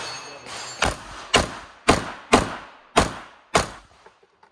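Six pistol shots from a small carry-size handgun, about two a second, each followed by a short echo. They are the final string of a shooting stage, just before the unload command.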